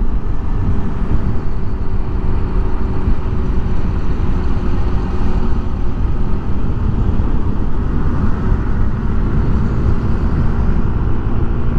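Motorcycle riding at speed on the open road, picked up by a Boya LM20 lavalier mic wrapped in thick foam: heavy wind rumble over a steady engine drone.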